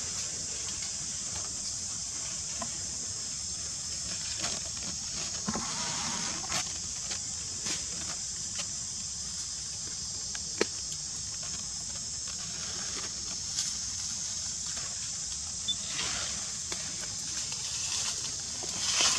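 Steady high-pitched insect drone in the forest, with scattered soft clicks and rustles and a louder rustle near the end.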